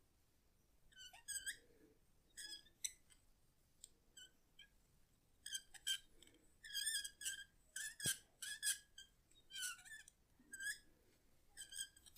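A series of short, high-pitched, wavering squeaks, coming in irregular clusters that grow denser in the second half, with one sharp click about eight seconds in.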